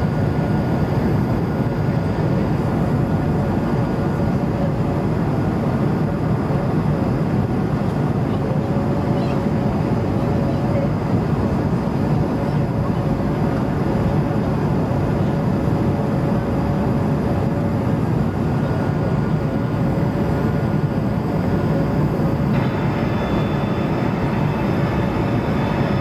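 Cabin noise of a Bombardier CS100 climbing out after takeoff: the steady rush of air and its Pratt & Whitney geared turbofans, with a faint wavering engine tone. A brighter hiss joins near the end.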